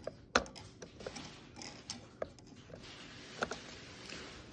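Scattered light clicks and knocks of C batteries being plucked one by one out of a 1985 Teddy Ruxpin's plastic battery compartment, over the first three and a half seconds.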